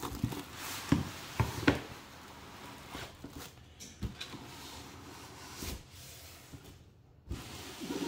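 Unpacking handling noise: cardboard box flaps and foam packing scraping, rustling and knocking as a plastic-wrapped PC case in foam end caps is slid out of its box. A few sharp knocks come in the first two seconds, then quieter rustling with an occasional click.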